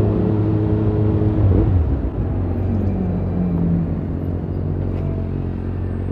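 Motor vehicle engines in street traffic: one engine holds a steady note, then drops in pitch about one and a half seconds in as it comes off the throttle, over a steady low engine hum.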